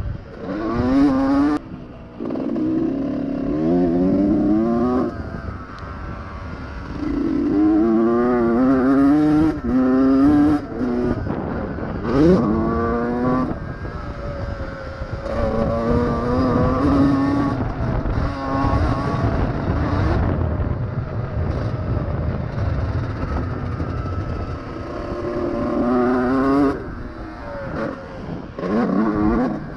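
2001 Honda CR125R two-stroke single-cylinder motocross engine revving hard in repeated surges: the pitch climbs through each pull and drops back as the throttle shuts or the gear changes, about half a dozen times.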